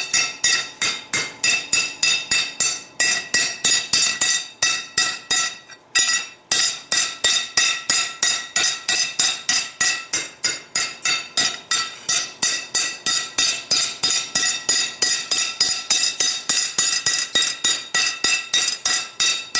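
Hand hammer striking a steel bracket on an anvil, a steady run of about three ringing blows a second with a short break about six seconds in. This is light finishing hammering at a low heat, planishing grind marks into a hammered texture.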